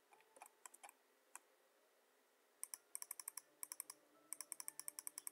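Computer mouse clicking in quick runs, several clicks a second, as the pointer steps a value up one notch at a time. A few clicks come near the start, then a faint, steady run of about twenty from about halfway through.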